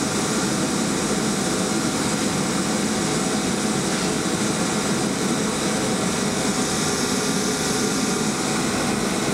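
A fan-driven machine running steadily: an even hum and hiss with no change.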